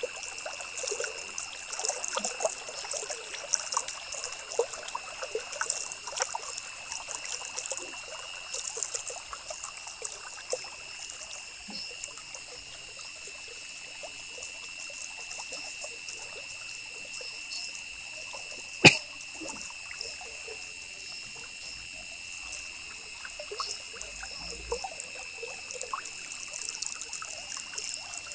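Ballpoint pen scratching over paper in quick, irregular strokes, busier in the first ten seconds and again near the end, over a steady high-pitched whine. One sharp click about nineteen seconds in is the loudest sound.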